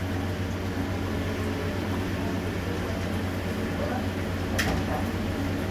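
Steady low mechanical hum, with a single sharp click about four and a half seconds in.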